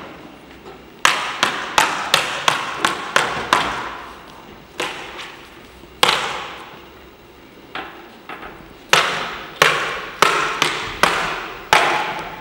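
Prop swords clashing in a choreographed stage sword fight: runs of sharp, ringing strikes about three a second, broken by a pause of a second or two between runs.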